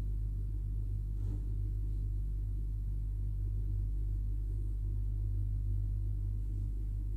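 A steady low hum, with a faint scrape about a second in.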